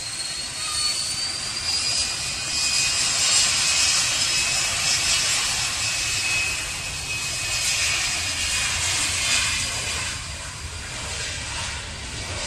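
Hawker business jet's twin rear-mounted turbofans: a high whine rising in pitch during the first two seconds, then a loud, steady jet rush as the jet rolls along the runway, easing off near the end.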